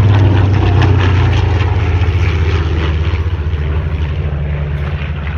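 Piston-engined warbirds, a P-40 with its inline V-12 and a TBM Avenger with its big radial, passing low in formation: a loud, steady propeller-engine drone that slowly fades as they go by.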